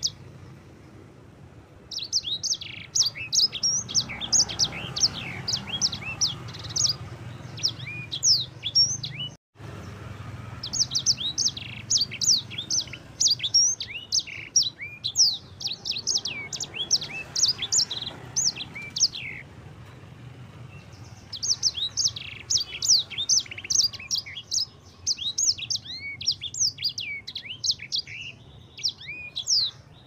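Caged sanger finch singing a fast, rolling song of quick, high down-slurred notes, in three long phrases with short pauses between. A faint low hum runs underneath.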